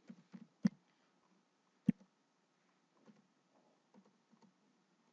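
Faint clicking at a computer: a few soft ticks and two sharper clicks about a second apart.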